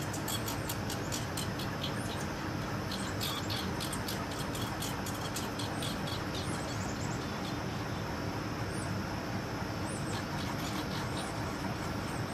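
American red squirrels squabbling at a caged bird feeder: an irregular run of sharp, high ticks and short chirps, thickest in the first half and thinning out later, over a steady low background noise.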